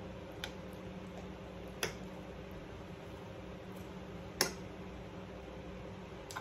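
Metal fork clicking against a plate a few times as food is picked up, the loudest click about four and a half seconds in, over a steady low hum.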